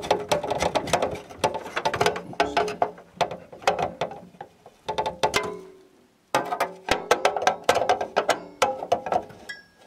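Ratcheting screwdriver clicking rapidly as the spring-loaded screws holding a PC's CPU heatsink are driven down. The clicking stops briefly about six seconds in, then starts again.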